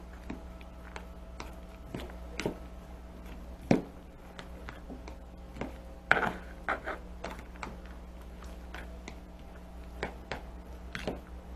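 Fork stirring grated carrot and squash in a plastic bowl: irregular light taps and scrapes against the bowl, the loudest about four and six seconds in.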